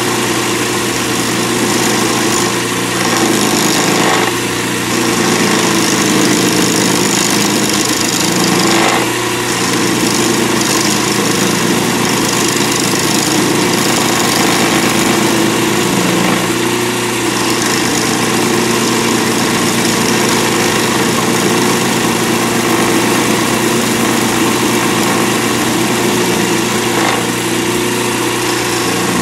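Lathe running steadily with a skew chisel taking light cuts on a square acrylic resin pen blank, the edge making chipping noises as it hits the blank's remaining corners. The cuts are kept shallow so the resin does not pit or shatter.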